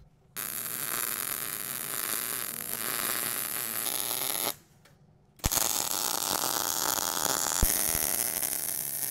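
MIG welding arc running on steel pipe with solid wire and shielding gas, in two beads. The first starts just after the beginning and stops about four and a half seconds in; after a brief pause the arc strikes again with a click and keeps running.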